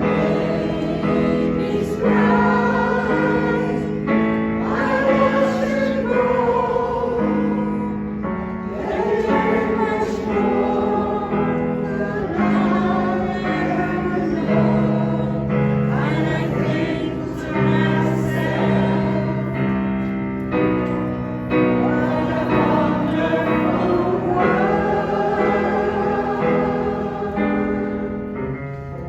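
A choir singing with keyboard accompaniment, in sustained chords.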